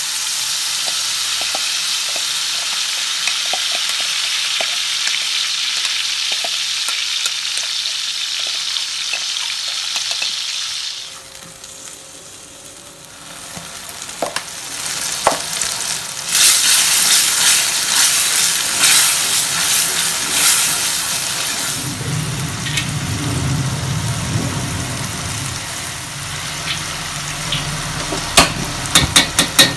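Ground green chilies sizzling in hot oil in a stainless steel frying pan, a steady hiss for about ten seconds. After a short quieter gap the frying grows louder with sharp pops for several seconds, and near the end a lower rumble and a few clicks join it.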